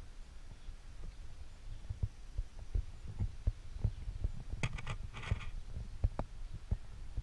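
Wind buffeting the camera's microphone: a low rumble with irregular thumps, and a brief higher rattle about four and a half seconds in.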